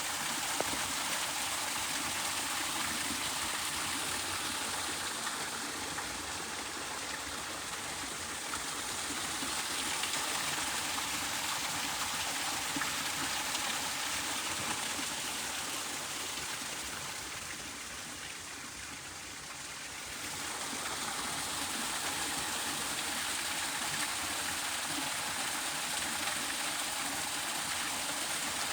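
Stream water flowing steadily, an even rush of water that softens briefly about two-thirds of the way through.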